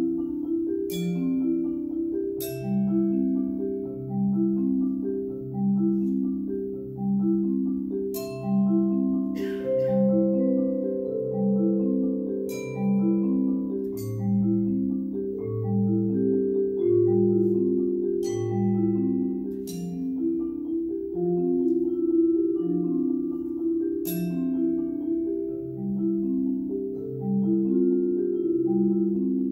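Yamaha marimba and Yamaha vibraphone playing a duet: a steady, rolling pattern of repeated mallet notes in the low and middle range, with longer ringing notes above. About halfway through, the marimba adds four deep bass notes.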